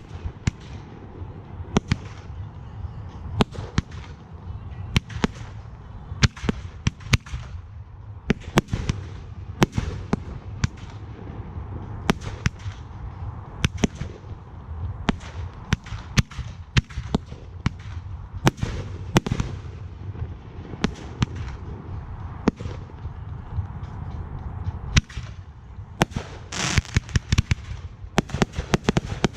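Aerial fireworks display: shells bursting one after another at irregular intervals, each a sharp bang with a short fading tail. Near the end comes a rapid string of cracks in quick succession.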